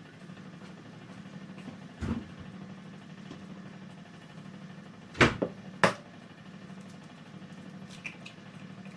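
Kitchenware knocking: a light knock about two seconds in, then two sharp knocks about half a second apart midway, over a steady low hum.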